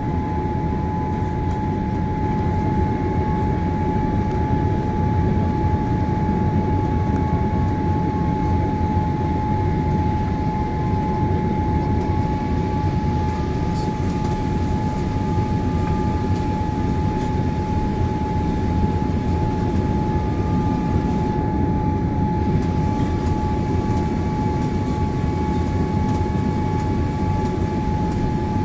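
Steady cabin noise inside a Boeing 787-8 Dreamliner: a constant rumble of engines and airflow with a steady high whine on top.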